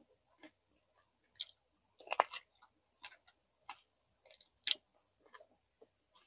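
Close-miked chewing of roasted vegetables: irregular wet mouth clicks and smacks, with the loudest burst of crunching about two seconds in.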